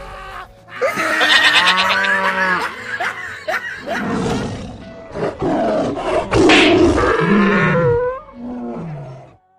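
Music mixed with animal-like growling calls, several short pitched cries that bend up and down, one falling away near the end.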